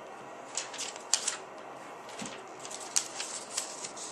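Paper cue cards and a notepad being handled and flipped on a table: an irregular string of light rustles and taps over a steady hiss.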